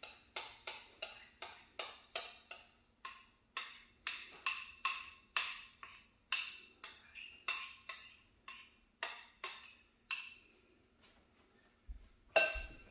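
Metal utensil striking and scraping the rim of a ceramic bowl while batter is knocked out into a larger bowl: a steady run of sharp clinks, about two or three a second, each ringing briefly, that stops about ten seconds in. A couple of louder knocks follow near the end.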